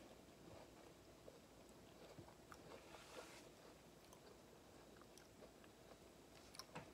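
Faint chewing of a Blackout Cake Oreo cookie, with a few soft clicks near the end.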